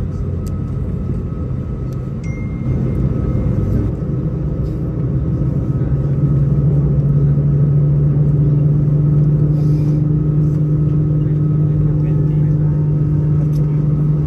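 Airbus A320-216's CFM56 jet engines heard from inside the cabin during taxi: a steady low drone with a humming tone that grows louder about three seconds in and again about six seconds in.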